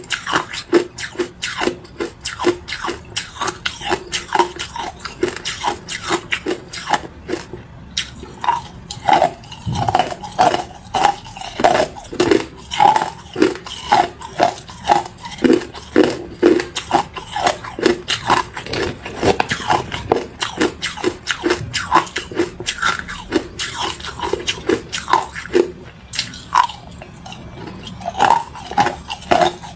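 Hard ice cubes dusted with matcha powder being bitten and chewed close to the microphone: a rapid, irregular run of sharp crunches, several a second.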